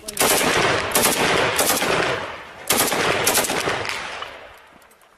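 Automatic gunfire: a long burst of rapid shots, then a second burst about two and a half seconds in that fades away near the end.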